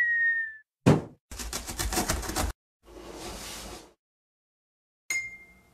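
Cartoon sound effects for an animated intro. In order they are a short whistle that dips slightly in pitch, a sharp thump that is the loudest sound, a fast rattle of about ten clicks a second lasting just over a second, a softer whoosh, and a bright ding near the end that rings and fades.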